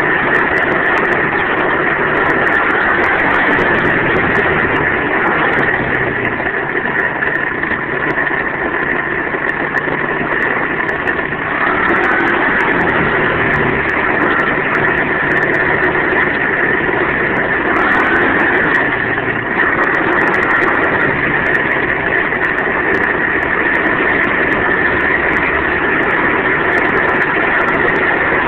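107cc four-stroke pit bike engine running steadily, its pitch rising briefly twice.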